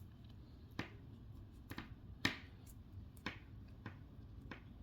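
About six quiet, sharp clicks and taps spaced irregularly, the loudest a little over two seconds in, as fingers handle and straighten the stiff untwisted wires of a Cat 6 Ethernet cable.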